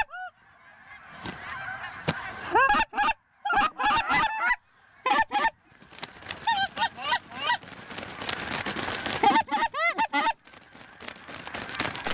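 A large flock of lesser Canada geese honking, with loud separate honks over a growing din of many birds calling at once from about halfway through.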